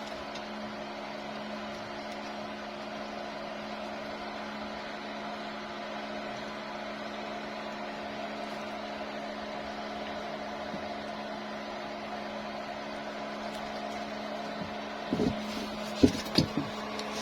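A steady mechanical hum at several fixed pitches, as from a motor running at constant speed. A few sharp knocks and clicks come near the end.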